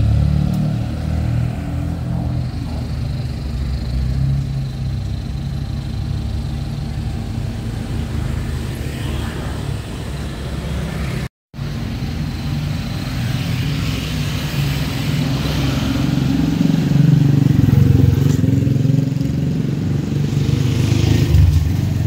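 Street traffic: vehicle engines running and passing, swelling as a louder vehicle goes by about two-thirds of the way through. The sound drops out completely for a split second about halfway.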